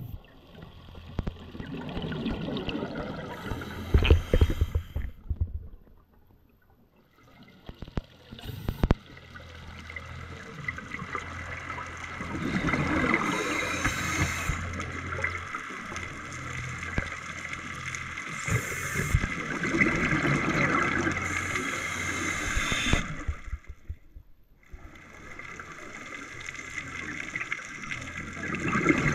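Scuba regulator breathing underwater: exhaled bubbles gurgle and rumble in bursts lasting several seconds, with short pauses between breaths.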